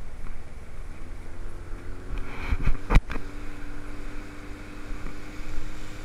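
Small fishing boat's engine throttled up to get under way, its note rising about a second in and then holding steady over a rush of wind and water. Two sharp thumps just before the halfway point are the loudest sounds.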